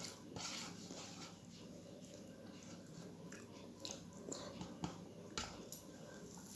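Chewing and mouth sounds of a person eating a meal of rice, dal and roti: soft, irregular clicks and smacks.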